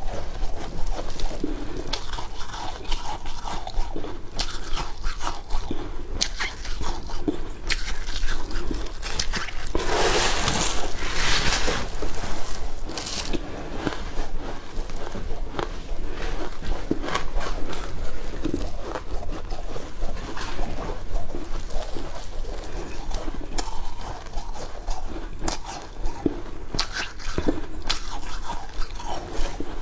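Close-miked biting, crunching and chewing of freezer frost: many small crackling crunches, with a longer, denser crunch about ten seconds in.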